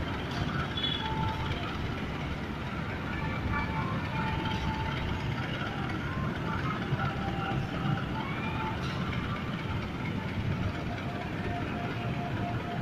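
Railway station platform ambience: a steady low rumble with faint, scattered distant voices.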